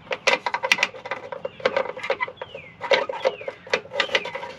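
Irregular metallic clicking and rattling of a bolt being fished through the inside of a pickup's frame rail toward its exit hole.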